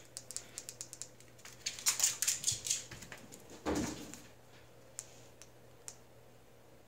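Kittens' claws and paws clicking and skittering on a wooden floor as they chase, with a burst of quick taps about two seconds in and a dull thump near four seconds, like a kitten landing from a pounce.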